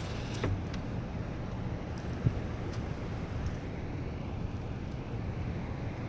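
Steady low rumble of an idling car, heard from inside the cabin with its window down. A light click comes about half a second in and a single sharp knock about two seconds in.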